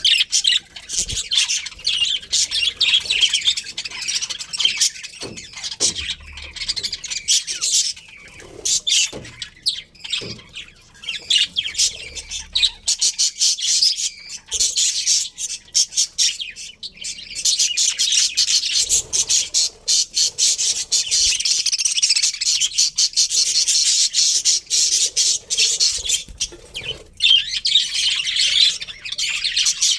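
A colony of budgerigars chattering and chirping without a break, many birds calling at once.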